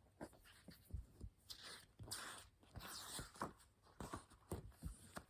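Faint rustling and a few light knocks of a picture book's paper page being turned and handled.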